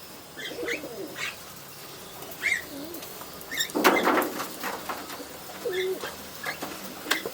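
Domestic pigeons cooing in low, bending calls, mixed with short higher chirps. A loud, brief rustling burst comes about four seconds in.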